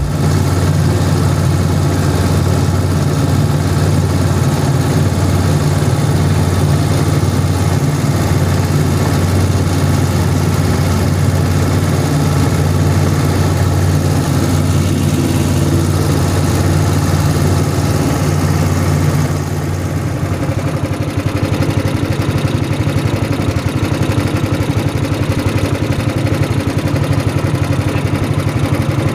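Small fishing boat's engine running steadily with a low, even drone, a little quieter from about twenty seconds in.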